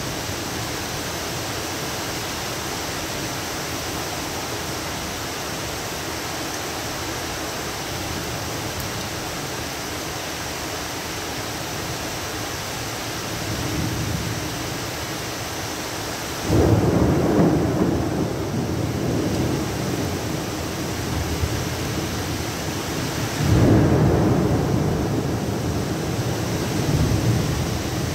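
Heavy rain pouring steadily. Two loud low rolls of thunder break in suddenly, one about 16 seconds in and another about 23 seconds in, each rumbling on for several seconds.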